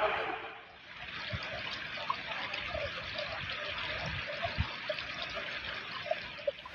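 Floodwater running along a kerb and trickling past the foot of a metal barrier, with many small bubbling blips through it.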